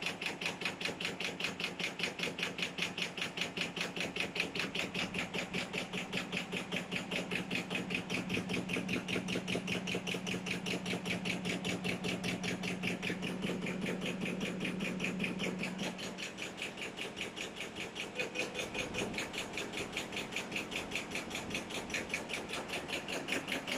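Label cutting machine running at high speed, its blade chopping PVC shrink-sleeve labels off the film in a rapid, even clatter over a steady motor hum. The hum drops away about two-thirds of the way through while the chopping goes on.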